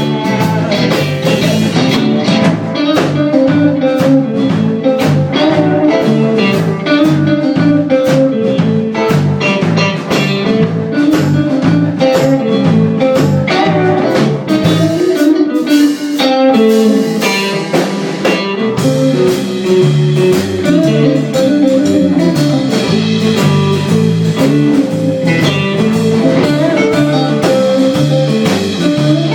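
Live blues band playing an instrumental passage: electric guitars over a drum kit, with the lowest notes dropping out for a few seconds about halfway through.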